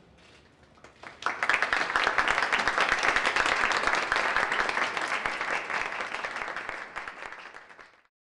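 An audience breaks into applause about a second in. The clapping is loud at first, then gradually dies away and cuts off abruptly near the end.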